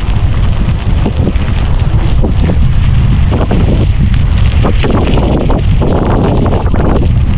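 Wind buffeting the microphone during a fast mountain bike descent, a heavy steady rumble with scattered knocks and rattles from the bike.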